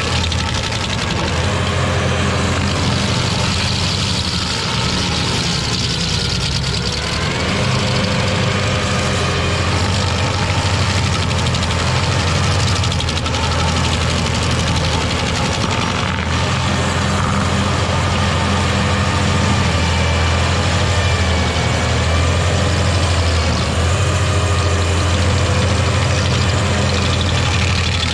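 Carlton SP7015 tracked stump grinder's engine running steadily under load as its cutter wheel grinds into a tree stump.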